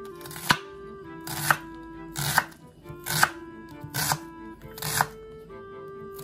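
Knife chopping a red onion on a wooden cutting board, six strokes about a second apart, the loudest sound. Soft background music with held notes continues underneath.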